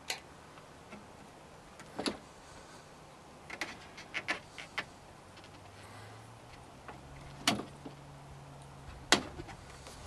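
Scattered sharp clicks and light knocks of hard plastic and metal parts inside a car door with its trim panel off, as the door lock rod and latch linkage are handled and fitted by hand. There is a small cluster of clicks a few seconds in and two louder clicks near the end.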